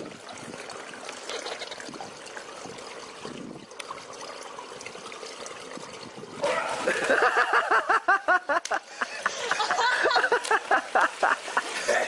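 Steady trickle of swimming-pool water; about six seconds in, loud rapid laughter in quick pitched bursts takes over.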